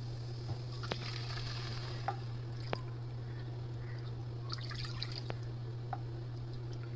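Water poured from a glass into a plastic measuring cup and tipped into a frying pan, with faint drips and small splashes, a short cluster of them about four and a half seconds in, over a steady low hum.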